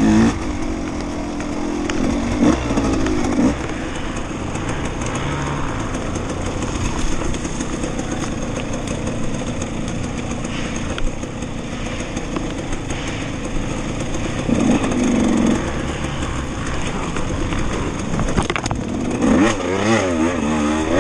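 KTM 200 XC-W two-stroke single-cylinder dirt bike engine running under load while being ridden along a trail, revving up and down with the throttle. Near the end come quick rises and falls in pitch as the rider blips the throttle.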